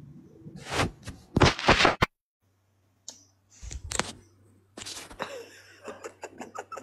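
Handling noise from a phone being picked up and moved: scattered knocks, clicks and rustling. The sound cuts out completely for about a second near the middle, and a low steady hum runs underneath after that.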